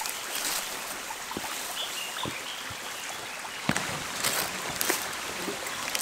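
Steady rush of flowing stream water, with a few short knocks and scuffs in the middle and later part.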